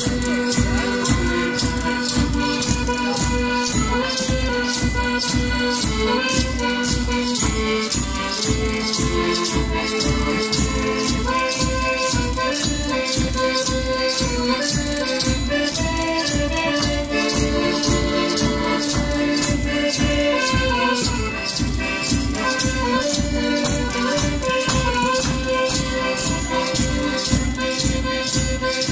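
Madeiran folk group playing traditional music: a shaken rattle keeps a fast, steady beat under held melody notes that move in steps, with some singing.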